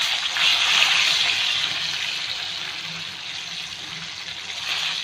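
Marinated fish shallow-frying in hot oil in a flat pan: a steady sizzle that is loudest about a second in, then eases a little.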